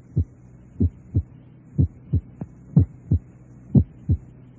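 Recorded human heart sounds, a lub-dub pair about once a second. The first heart sound grows louder from beat to beat while the second stays the same, which is the accentuated first sound typical of developing mitral stenosis. A steady low hum runs underneath.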